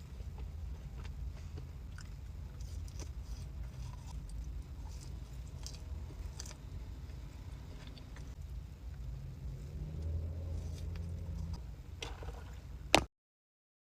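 Close-up eating sounds: a person chewing and biting food, with small wet clicks and crunches over a low rumble. A sharp click comes near the end, then the sound cuts off abruptly.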